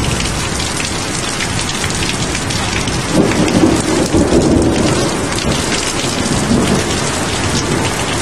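Steady rain pouring down during a thunderstorm, with thunder rumbling underneath; the rumble swells about three seconds in and eases off a couple of seconds later.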